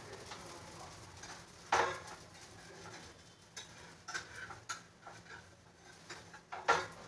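Metal spatula scraping and tapping on a dosa pan: a few scattered short scrapes and clicks, the loudest about two seconds in.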